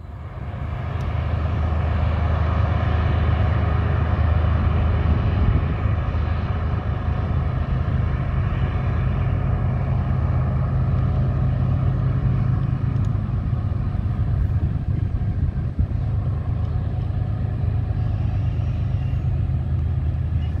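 Diesel freight locomotives running close by: a loud, steady low engine drone with layered tones above it, swelling up over the first two seconds and then holding.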